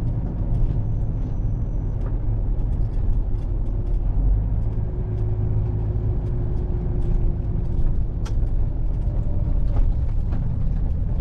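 HGV lorry engine and road noise heard from inside the cab, a steady low rumble while driving, with a faint hum in the middle and light scattered clicks.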